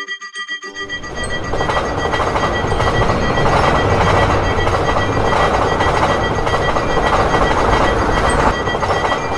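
A train passing through a level crossing: its rushing rumble builds about a second in and holds until near the end, while the crossing's warning bell keeps ringing.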